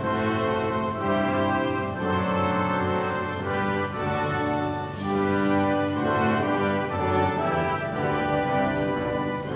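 Orchestral music, with brass playing slow, held chords that change about once a second and a cymbal crash about five seconds in.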